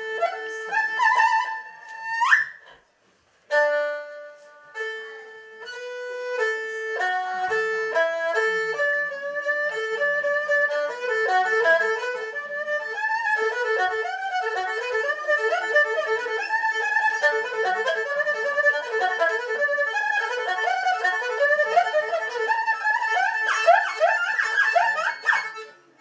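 Solo erhu, bowed: a phrase ends in an upward slide, then after a short pause single notes start slowly and quicken into fast trilling runs, with quick upward slides near the end, the birdsong-imitating passage of the piece.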